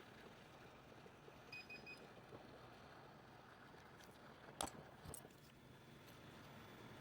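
Near silence with faint room hiss, broken by three quick faint electronic beeps about a second and a half in and two light clicks near the middle.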